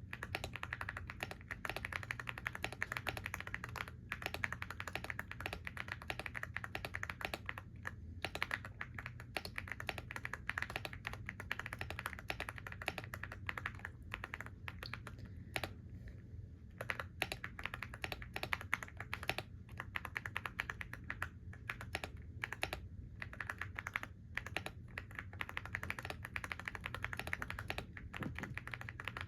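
Typing on a computer keyboard: a dense run of fast key clicks, broken by short pauses every few seconds.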